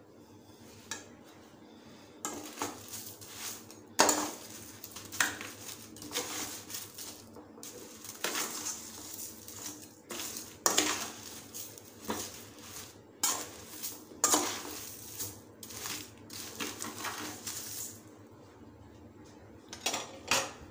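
A slotted metal spatula scraping through salt and clinking against an aluminium kadai as foil-wrapped corn cobs are turned over in the hot salt, in uneven strokes from about two seconds in until near the end.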